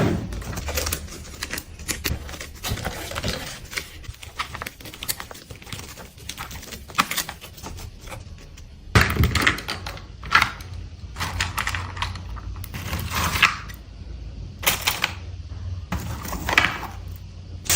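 Slime being squeezed and poked, giving a steady run of small clicks and crackles, with several longer crackling bursts in the second half.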